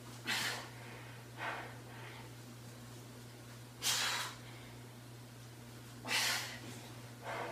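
A woman breathing hard through single-arm push-ups: three strong, sharp breaths out as she presses up, each followed about a second later by a shorter, softer breath, over a steady low hum.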